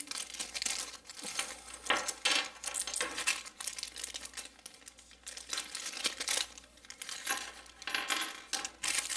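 Small plastic parts bags crinkling as they are opened by hand, with small hard hardware pieces clicking as they drop onto a wooden tabletop.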